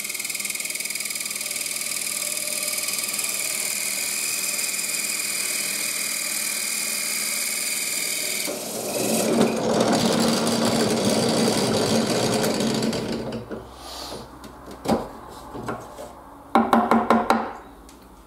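Benchtop drill press with a hole saw cutting circles out of a wooden board: a steady motor whine, turning louder and rougher about eight seconds in as the saw bites deeper into the wood. About thirteen seconds in the running sound ends, followed by a few knocks and a short rattle as the cut wooden disc is worked free.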